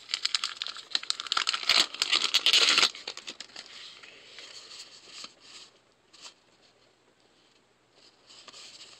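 A foil trading-card pack wrapper being torn open and crinkled, loud and crackling for about three seconds. Softer rustling of wrapper and cards follows and dies away by about six seconds in, with a little more rustling near the end.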